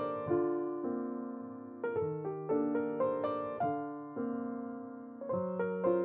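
Background music: a piano playing phrases of quick notes over held low notes.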